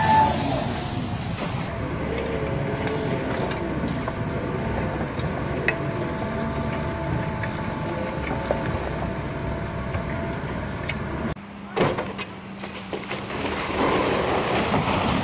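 Heavy demolition machinery running, an excavator's engine and hydraulics with a steady whine. Then comes a sharp bang and a swelling rush of breaking concrete as a tower gives way and tips over.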